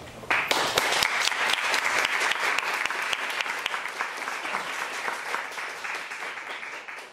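Audience applauding: the clapping breaks out suddenly just after the start and gradually thins out toward the end.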